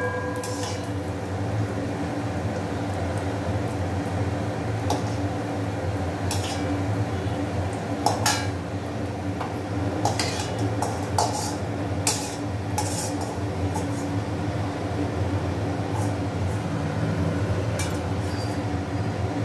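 Perforated steel skimmer clinking and scraping against a stainless steel kadai as bread omelette pieces are turned in hot oil, with about ten sharp knocks spread out, the loudest about eight seconds in. Oil sizzles steadily underneath.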